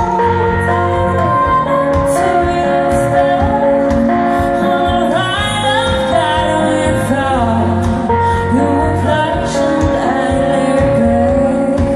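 Live band music: a woman sings a slow, held melody over electric guitar.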